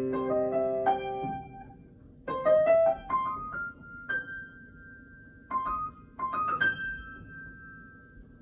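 Upright piano played slowly by a child: short runs of single notes stepping upward, with pauses between the phrases and a note left ringing after each one.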